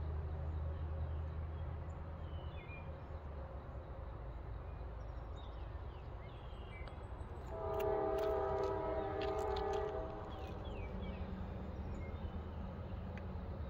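Norfolk Southern diesel locomotive horn sounding one long chord of about two and a half seconds, about halfway through, over the steady low rumble of the approaching train's diesel engines.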